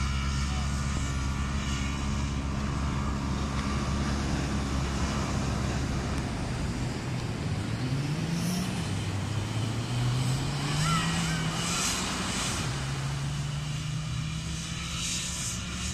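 Side-by-side UTV engine running at a steady drone, then about eight seconds in revving up and accelerating away, its pitch climbing, dipping and climbing again, over a steady noise of wind and surf.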